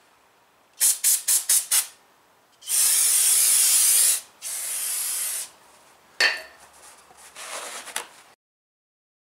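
Aerosol brake cleaner sprayed onto an engine's flywheel to clean the clutch mating surface: about five quick short spurts, then a long spray of about a second and a half and a shorter, quieter one. Near the end, paper towel rustles as it wipes the flywheel face, then the sound cuts off abruptly.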